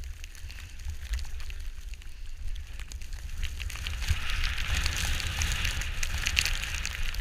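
Wind rumbling over the microphone during a downhill run on snow, with the hiss and crackly scrape of edges sliding on snow growing louder about halfway through.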